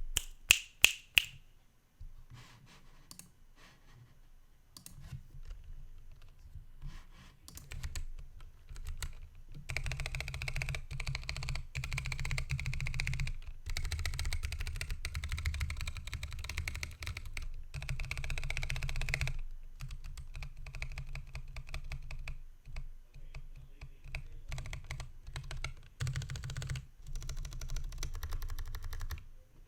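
Typing on a Lily58 Pro split mechanical keyboard with Hako Royal Clear tactile switches, 3D-printed PLA DSA keycaps and a 3D-printed PLA case. A few sharp single key presses come first, then long runs of rapid keystrokes broken by short pauses.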